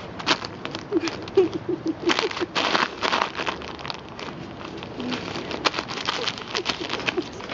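A dog tearing and chewing at a striped paper bag: paper crackling, crinkling and ripping in quick irregular spells, busiest a couple of seconds in.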